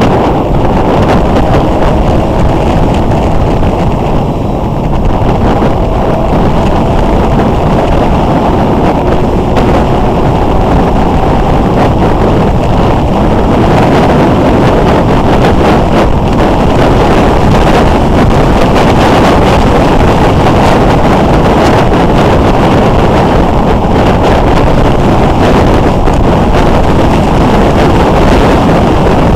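Motorcycle riding at road speed: heavy, steady wind noise buffeting the microphone, with the engine's note faintly under it, rising and falling a little with the throttle.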